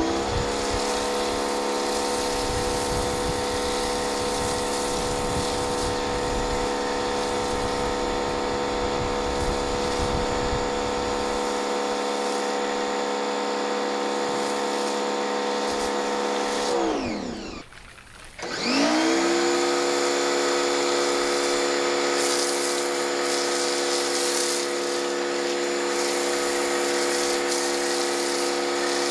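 Pressure washer running a foam cannon: a steady motor hum with the hiss of the spray. About two-thirds of the way through, the motor winds down to a stop and spins back up a second later.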